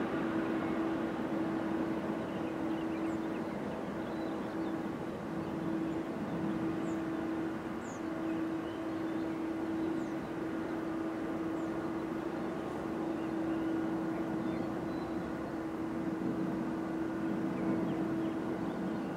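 Boeing 777-300 airliner's jet engines running as it taxis: a steady drone with a constant hum held through it.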